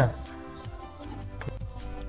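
Soft background music with held notes under the narration, heard alone in a pause in the talk.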